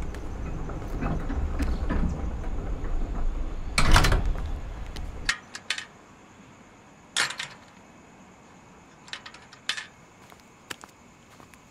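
A gate being pushed and shaken: a low rumble with scraping and rattling, a loud bang about four seconds in, then a few short, sharp metallic clicks at the latch.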